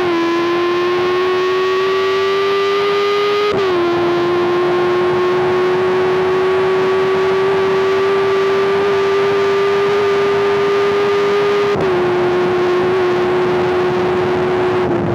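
Honda CBR650R's inline-four engine, breathing through an Arrow aftermarket exhaust, pulling hard at high revs. The note climbs slowly, then drops sharply with an upshift about three and a half seconds in and again about twelve seconds in.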